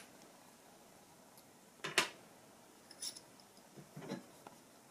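Handling noise of small metal tools on a workbench: a drill bit fitted with a stop collar and a small Allen key being picked up and set down. One sharp click about two seconds in, then a few fainter taps.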